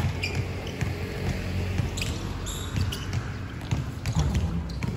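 Basketball game: the ball bouncing on a hard court with a sharp knock right at the start, then irregular knocks and a few short high squeaks.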